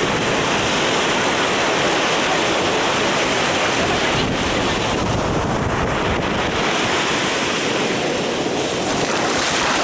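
Black Sea waves washing up on a sandy beach, a steady surf wash with wind noise on the microphone.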